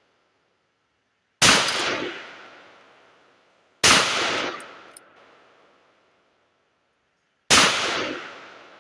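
Three single pistol shots from a PSA 5.7 Rock firing 5.7x28mm 40-grain full metal jacket rounds, spaced a few seconds apart. Each is a sharp crack followed by an echo that dies away over about a second and a half.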